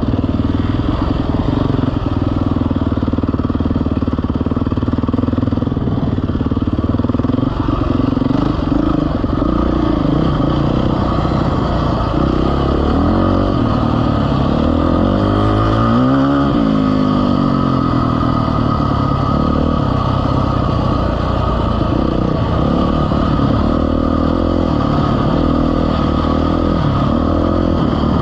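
Vehicle engine running steadily, revving up and easing back down again around the middle.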